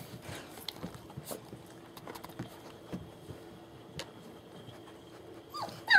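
Faint scattered taps and clicks of German Shepherd puppies' paws and claws on the floor as the young litter shuffles about and nurses. Right at the end comes one loud, high, falling puppy yelp.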